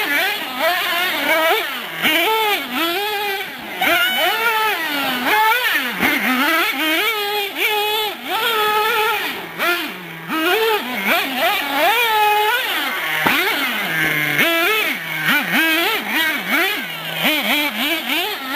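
Traxxas Revo nitro RC monster truck's O.S. glow engine revving up and down over and over as the truck is driven, its pitch rising and falling about once a second.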